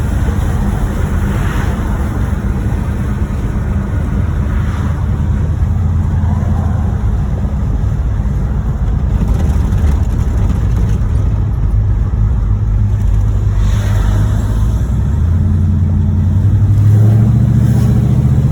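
1986 Monte Carlo SS V8 engine running under way, its pitch stepping up near the end. The engine has a bottom-end rod knock.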